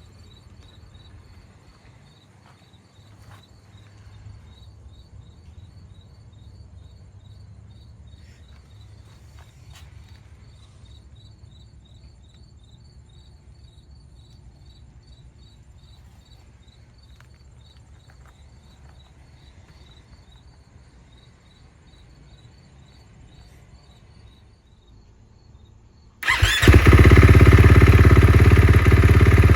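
Insects chirping in an even pulse of about four a second, with a few faint clicks. About 26 seconds in, a KTM 450 SMR's single-cylinder engine starts suddenly and runs loudly.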